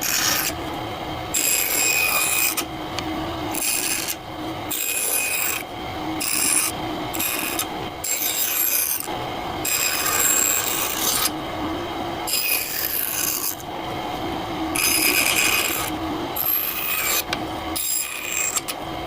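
An abrasive hand tool scraping across wood in repeated back-and-forth strokes, about one a second.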